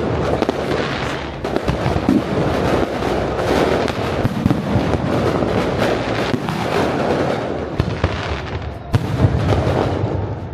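Fireworks display: many bangs and crackling bursts in quick succession, overlapping into a continuous din.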